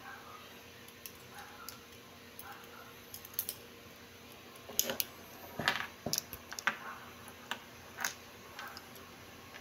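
Light clicks and taps starting about halfway through, as a Timex ladies' wristwatch with a metal link bracelet is picked up and handled on a wooden workbench, the bracelet links and case knocking against the wood.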